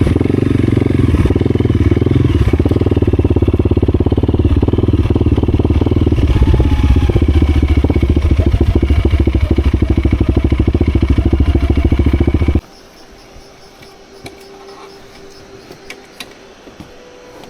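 Motorcycle engine running hard with a fast, even pulse. It cuts off abruptly about twelve and a half seconds in, leaving only faint background sound.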